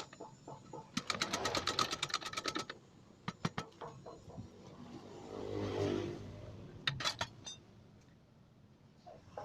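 Suzuki Let's scooter engine running, with a fast rattling clatter early on and a short rev that rises and falls about midway. This is the rough noise from the CVT area that shows when the throttle is blipped.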